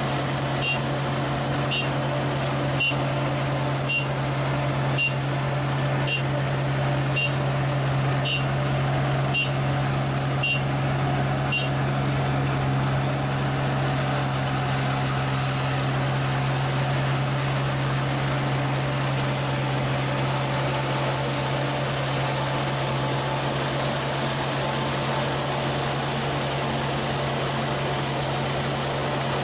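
ISEKI rice combine harvester running steadily as it cuts rice, a constant engine drone. A short high electronic beep repeats about once a second and stops about twelve seconds in.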